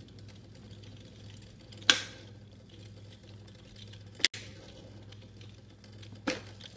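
Three short, sharp clicks roughly two seconds apart over a steady low hum. The loudest click comes about two seconds in. A little after four seconds the sound cuts out for an instant.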